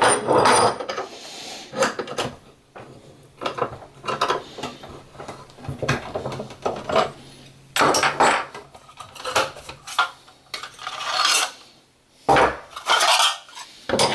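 Irregular metallic clanks, knocks and scrapes as steel clamps and a bent aluminium sheet are handled on the bench.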